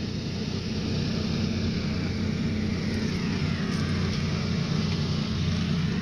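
Steady low hum of running machinery.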